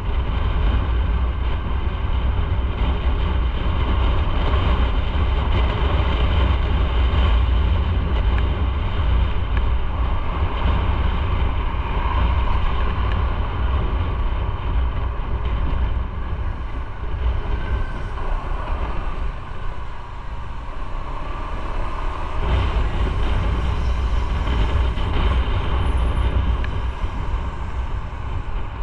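Motorcycle on the move, its engine running steadily under a heavy low rumble of wind noise; it eases off briefly about two-thirds of the way through.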